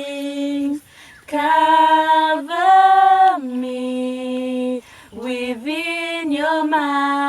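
A woman singing a slow worship song unaccompanied. Her long held notes are broken by two short breaths, one about a second in and one about five seconds in.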